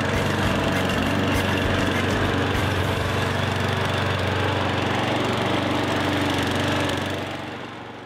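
Riding lawn mower engine running steadily, fading out over the last second.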